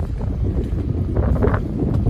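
Wind buffeting the microphone as a dense, steady low rumble, on the open deck of a cargo ship, with a brief brighter swish about a second in.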